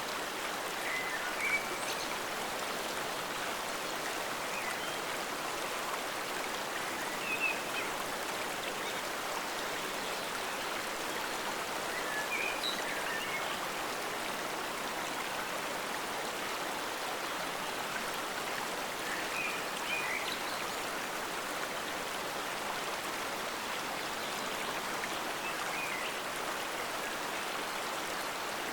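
Forest stream water flowing steadily, with a short higher splash or chirp every five to seven seconds.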